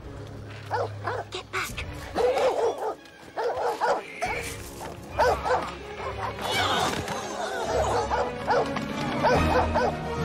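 Guard dogs barking repeatedly over the film's score music.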